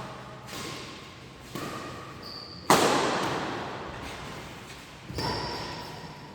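Badminton rally in a large hall: sharp cracks of rackets striking the shuttlecock, the loudest a little under three seconds in and another about five seconds in, each ringing out in a long echo, with short sneaker squeaks on the court floor.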